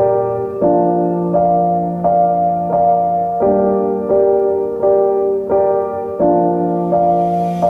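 Background keyboard music: a slow, even sequence of sustained piano-like notes and chords, a new one struck about every 0.7 seconds.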